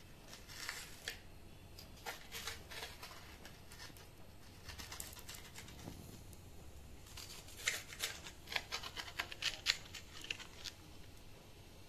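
Sharp knife cutting through a crisp, butter-toasted grilled sandwich: the browned bread crackles and crunches under the blade in several short bouts, the busiest in the last few seconds.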